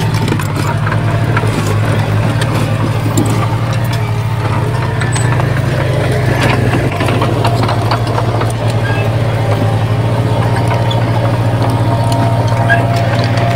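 A heavy earthmoving machine's diesel engine running steadily, with scattered clanks and knocks over it.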